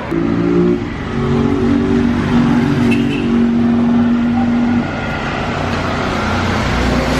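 A motorcycle engine running at raised revs with a steady note for about five seconds, then dropping back to a lower steady running sound.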